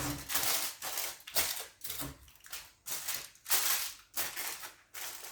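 Oil sprayer being pumped over and over, short hissing sprays about two a second.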